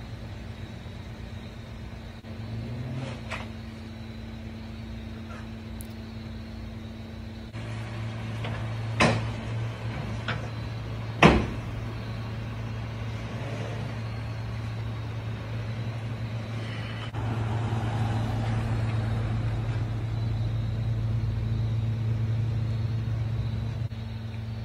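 Vehicle engines running at a steady low idle while a Rolls-Royce is loaded into an enclosed car-carrier trailer, with two sharp knocks about nine seconds in and again two seconds later. The engine hum grows louder about seventeen seconds in.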